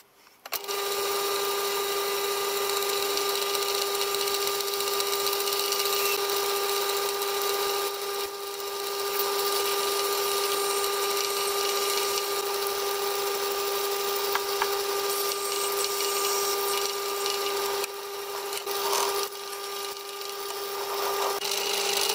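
Metal lathe running with a twist drill cutting into a grade 316 stainless steel block held in the four-jaw chuck: a steady machine whine with cutting noise over it, dipping briefly a couple of times.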